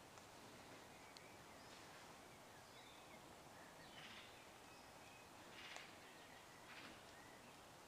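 Faint birdsong: scattered short chirps and call notes over a quiet background hiss, the clearest about four and six seconds in.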